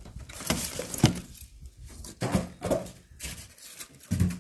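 Cardboard and crushed styrofoam packing being handled and scraped against plastic wrap, in short irregular rustles and scrapes, with one sharp knock about a second in.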